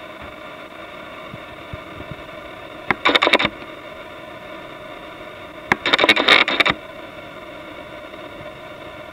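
Hands handling a plastic clock case and the wires of its movement: two short bursts of rustling and clicking, about three seconds in and again about six seconds in, over a steady background hum.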